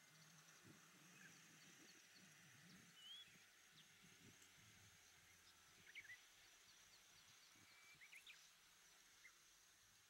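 Faint natural ambience: a steady high insect trill, with a few brief high chirps from small birds about three seconds in, around six seconds and near eight seconds.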